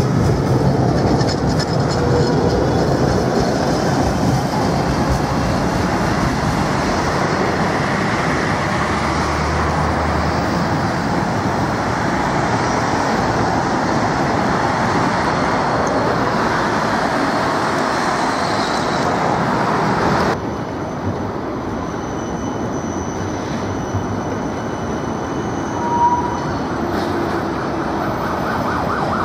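Vintage Ganz UV tram running on street track: a steady rumble and rattle of its wheels and body on the rails, mixed with road traffic. After an abrupt change about two-thirds of the way in, thin high steady tones run through the sound, typical of steel wheels squealing on a curve, and a short tone sounds near the end.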